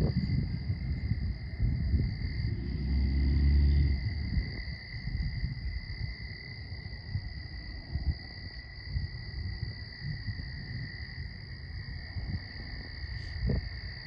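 Steady, high-pitched chorus of calling insects on two pitches, over a low rumble that swells briefly about three seconds in.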